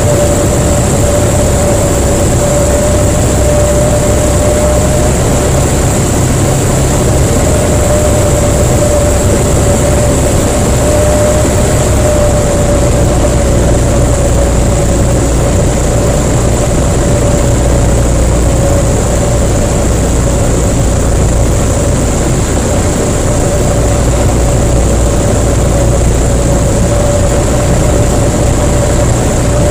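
Jabiru LSA-55 light aircraft's engine and propeller running steadily in flight, heard inside the cockpit as a loud, constant drone with a slightly wavering mid-pitched tone over a low rumble and rushing air.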